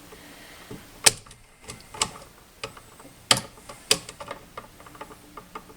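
Wall receptacle and its copper wires being worked at the terminal screws: an irregular string of sharp clicks and small ticks, the loudest about one, two, three and four seconds in.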